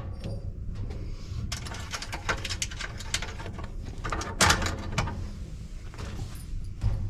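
Metallic clicking and scraping of a socket wrench working the brass terminal nuts off an electric sauna stove's heating element. The clatter is busiest in the middle and loudest about four and a half seconds in.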